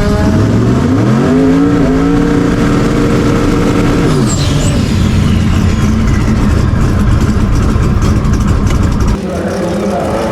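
Drag race car engine at full throttle in a launch: the pitch climbs steeply, holds high for a couple of seconds, then falls away about four seconds in as the driver lifts off. The engine keeps running loudly, with a drop in level near the end.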